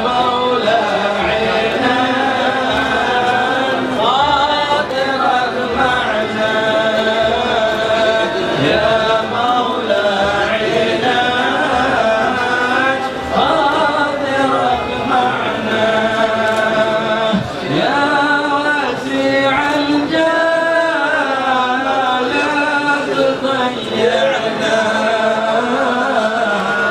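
A group of men chanting a devotional song together in unison, with no instruments.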